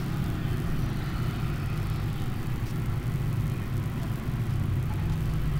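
A steady low mechanical rumble, like a motor running in the background.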